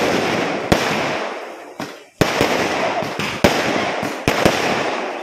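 Fireworks display going off: a string of sharp bangs, each followed by a crackling rumble that fades away, with a short lull about two seconds in before the bangs resume.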